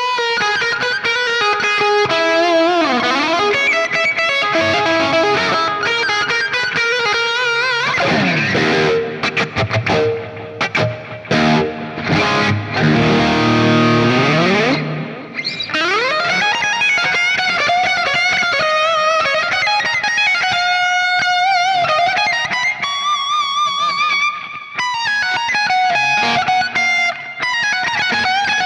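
Distorted electric guitar lead played through an Axe-FX III modelling preset with Greenback speaker cabinets, voiced like a cranked Marshall. It plays sustained notes with wide vibrato and sliding pitch glides. A choppy stop-start passage comes from about 8 to 15 seconds in.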